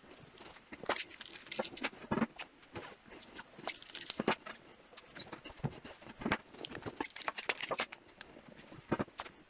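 Thick insulating tape being pulled and pressed onto a prismatic lithium iron phosphate battery cell, with the cell handled on a tabletop: an irregular run of short clicks, scrapes and light knocks.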